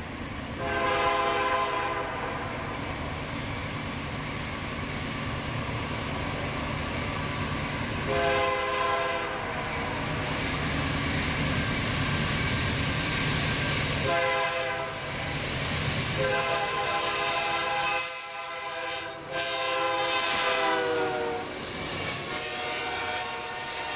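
Horn of the CN C44-9W diesel locomotive sounding a series of about six blasts for a grade crossing as the train approaches, over the low rumble of the engine and train. The horn's pitch drops on the last blasts as the locomotive passes close by.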